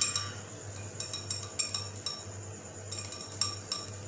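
A utensil beating sauce in a container, clinking against its sides again and again, with short pauses between runs of strokes.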